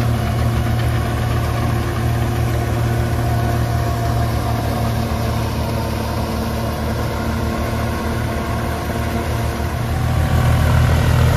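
New Holland 3630 tractor engine running steadily under load as it drives a straw reaper, which cuts the wheat stubble and blows chopped straw into the trolley; a steady low hum that gets louder about ten seconds in.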